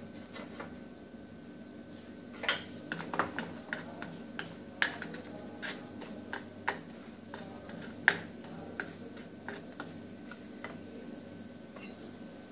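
Wooden spatula pushing hard lumps of jaggery around a non-stick frying pan in a little ghee: irregular taps, clicks and scrapes of spatula and lumps against the pan, the sharpest knock about eight seconds in. A faint steady hum runs underneath.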